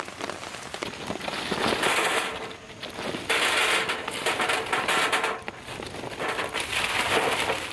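Charcoal briquettes poured from a paper bag onto the metal wire grate of a folding fire-pit grill, clattering in three bursts.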